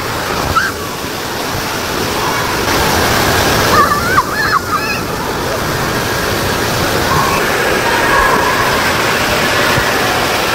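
Whirlpool spa jets churning the pool water into a steady, rushing bubbling, with short high children's voices about half a second in and again around four to five seconds in.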